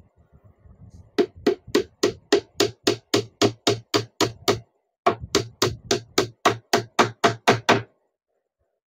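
Hammer driving a roughly one-inch nail into half-inch plywood: two quick runs of steady blows, about three to four a second, with a short pause between them.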